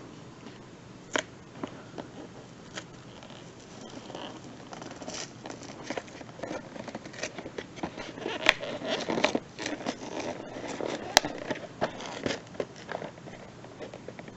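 Toy packaging being handled and opened: irregular crinkling and scraping of plastic and cardboard with sharp clicks, getting busier partway through, with two loud snaps later on.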